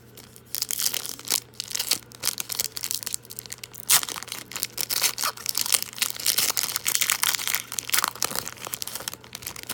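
Foil trading-card pack wrapper being torn open and crinkled: a dense run of crackling and tearing that starts about half a second in and stops just before the end.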